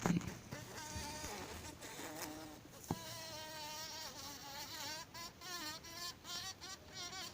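Bumblebee caught in a spider web buzzing in uneven bursts, its pitch wavering up and down as it struggles to get free. There is a single sharp tap about three seconds in.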